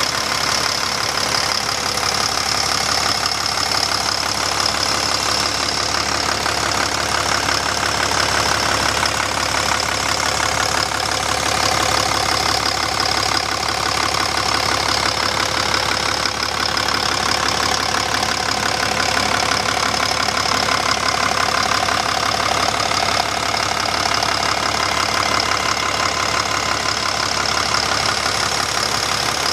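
Volvo D6H six-cylinder diesel engine of a Volvo L60G wheel loader idling steadily, with no change in speed.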